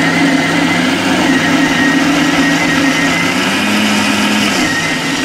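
Electric mixer grinder running steadily, wet-grinding grated fresh coconut with water to extract coconut milk.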